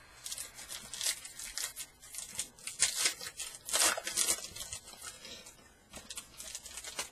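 A 2017 Topps Fire baseball card pack's shiny foil wrapper being torn open and crinkled by hand: a run of irregular crackling rustles, loudest about three to four seconds in.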